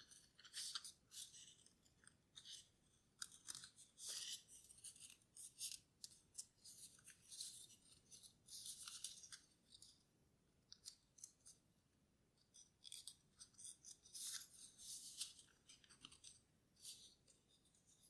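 Faint, intermittent rustling and crinkling of origami paper being folded and creased by hand, in short irregular bursts with a quieter stretch about two-thirds of the way through.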